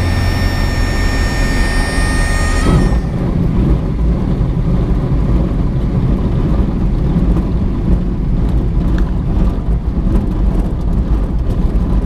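Inside the cockpit of a Diamond DA20 light aircraft landing: a steady high-pitched warning tone sounds over the engine and airflow noise, typical of the stall warning horn in the flare, and cuts off about three seconds in. After that comes a steady low rumble of the wheels rolling on the runway with the engine at idle.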